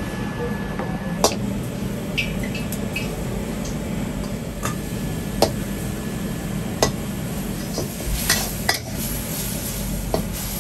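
Metal spatula stirring and scraping in a wok as meat and long beans stir-fry, with irregular sharp clinks of metal on metal over a steady low rumble.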